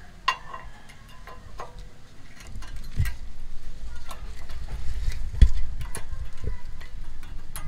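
Small metal clicks and knocks of brake pads being fitted into a Chevrolet Trailblazer's disc-brake caliper bracket and pressed against the rotor. A sharp click comes just after the start, with heavier knocks about three and five and a half seconds in over a low rumble.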